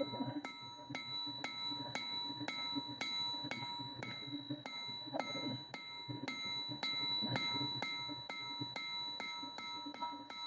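Hand hammer striking a red-hot steel leaf on an anvil in a steady rhythm of about three blows a second, the anvil ringing on between blows.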